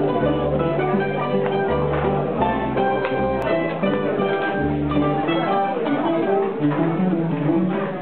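A mandolin ensemble of five mandolins, a string bass and a guitar playing a tune live, with quick picked mandolin notes over a bass line that moves every second or so.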